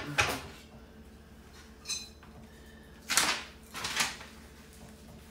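Metal frame parts of a kitchen storage cart knocking and clanking as they are handled during assembly: a knock near the start, a lighter clank with a brief metallic ring about two seconds in, and two louder knocks between three and four seconds in.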